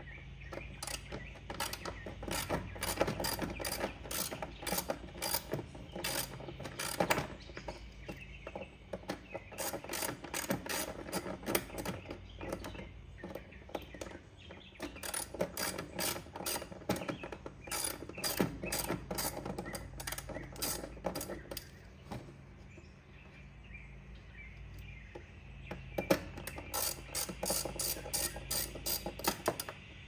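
Hand socket ratchet wrench clicking in quick runs of strokes, with short pauses between them, as it turns the fasteners that hold a motorcycle tour pack's latch. There is a longer lull about three quarters of the way through before a final run of clicks.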